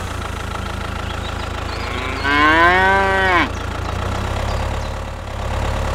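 A cow moos once, about two seconds in, a single call a little over a second long that rises and then falls in pitch, over a steady low engine hum.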